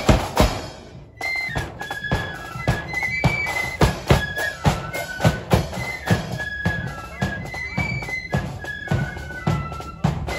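Marching flute band playing: drums beat a steady march, and about a second in, after a short break, the flutes come in with the tune over the drums.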